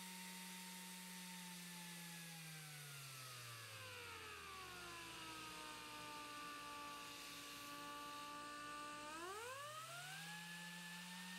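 Air random orbital palm sander whining as it spins, slowing down smoothly to a lower speed, holding there, then spinning quickly back up to full speed near the end.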